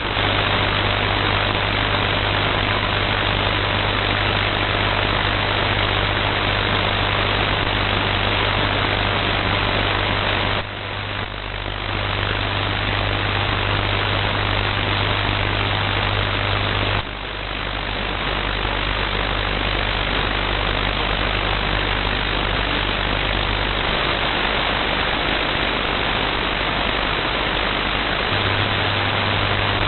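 Shortwave receiver's audio swamped by loud interference noise: a steady harsh hiss with a deep buzz underneath, covering the broadcast. It dips briefly about ten and a half and seventeen seconds in.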